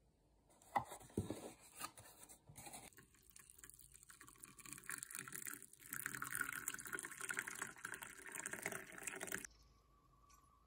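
Water poured into a glass mug over a fruit tea bag: a splashing stream that grows louder about halfway through and cuts off suddenly. Before it come a few crinkles and taps as the cardboard tea box is handled.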